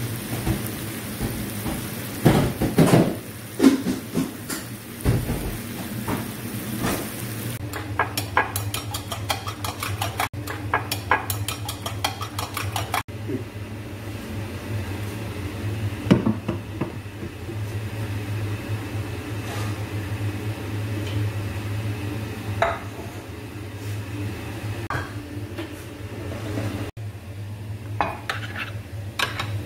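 Metal spoon clinking and scraping against a pan and a ceramic dish while stirring, in bursts of short knocks and clicks, over a steady low hum.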